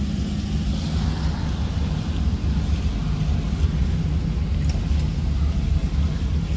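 A taxi's engine and road noise heard from inside the cabin while it drives along a town street: a steady low rumble.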